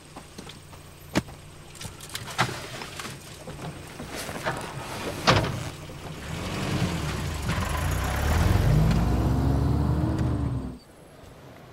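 Vehicle engine running, with a few sharp knocks, then revving up and rising in pitch before cutting off abruptly near the end.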